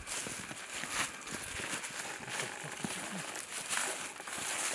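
Dry fallen leaves crunching and rustling as people and dogs move through leaf litter on foot, with faint voices in the background.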